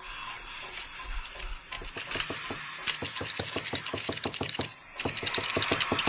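Rapid, even mechanical ticking from the film's soundtrack, growing louder, breaking off for a moment about five seconds in and then resuming.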